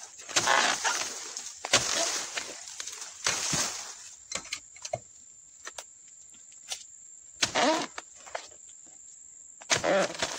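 Rustling footsteps through undergrowth, then a few light knocks and scrapes as a dodos palm-harvesting chisel on a metal pole is set against an oil palm's frond bases and bunch stalk. A steady high-pitched tone runs through the middle, and two short pitched sounds come near the end.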